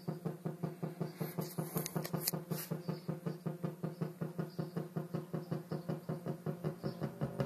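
Homemade MFOS Echo Rockit analog synthesizer playing a fast, steady pattern of short, low pitched pulses, about five a second. A few faint sharp clicks sound between one and three seconds in.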